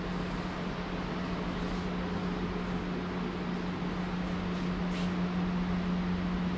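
A steady low hum over an even hiss, the constant drone of a machine such as air conditioning or ventilation, with a faint click about five seconds in.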